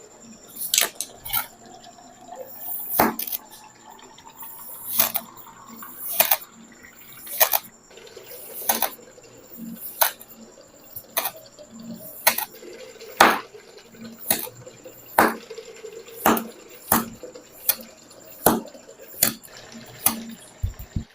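Kinetic sand being scooped with a metal melon baller, a crisp crunching scrape about once a second, some strokes with a short rasp before the crunch.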